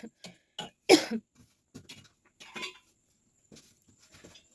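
A person coughing on purpose for a coughing challenge: one loud cough about a second in, with several shorter, quieter coughs and throat sounds scattered around it.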